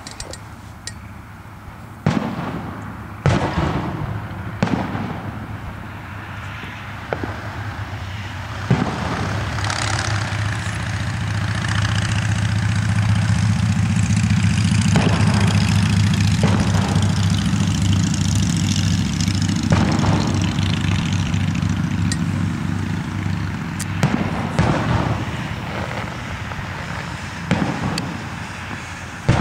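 Aerial fireworks shells bursting, with sharp booms every few seconds and crackle in between. A steady low hum swells up through the middle and fades away.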